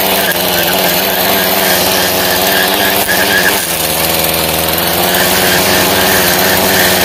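String trimmer engine running steadily while its line cuts overgrown grass along a rock edge, with a brief dip in engine speed about three and a half seconds in.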